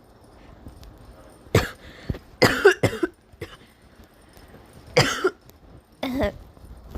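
Intense hiccups: about five sharp, voiced hics at irregular intervals, two of them in quick succession.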